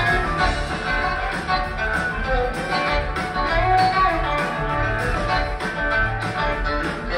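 Live rock band playing an instrumental jam, electric guitar to the fore over drums, bass and keyboards.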